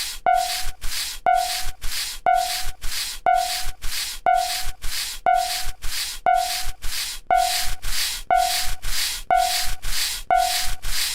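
Cartoon level-crossing warning sound effect: a hissing swish repeating about twice a second, with a short tone once a second.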